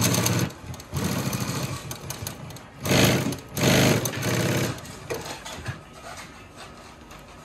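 JUKI LU-2810V-7 direct-drive industrial walking-foot sewing machine stitching through about eight layers of heavy material, with rapid needle strokes. It runs in short bursts of a second or so, the loudest about three to four seconds in. It then stops, leaving a few light clicks.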